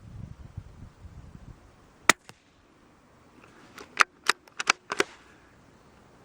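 A single shot of Norma Subsonic-22 ammunition from a Brno (CZ) .22 LR bolt-action rifle: one sharp crack about two seconds in, with a faint second click right after. About two seconds later comes a quick run of five sharp clicks within about a second.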